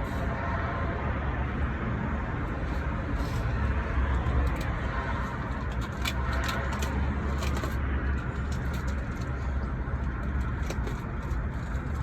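Light metallic clicks and taps of brake pads and caliper hardware being handled, scattered throughout, over a steady low background rumble.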